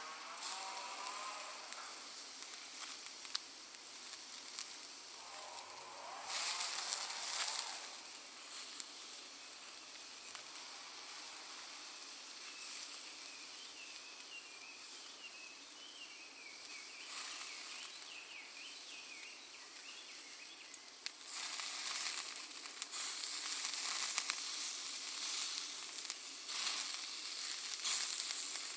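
Sausages sizzling over a charcoal and cherry-wood fire. The hiss swells several times, most strongly in the second half, and scattered crackles and pops come from the burning Iwate cut charcoal.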